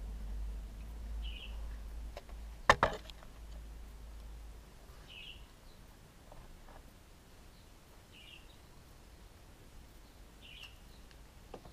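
A small bird chirping faintly about every three seconds. A single sharp knock comes a little under three seconds in, and a low rumble sits under the first few seconds.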